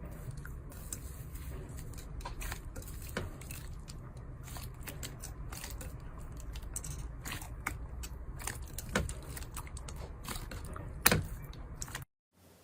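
Slime being handled and squished: many irregular small clicks and pops over a low steady hum, with one sharper, louder pop near the end before the sound cuts off abruptly.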